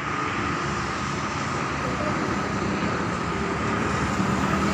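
Steady running noise of a moving road vehicle: a low rumble and road noise with a constant high whine.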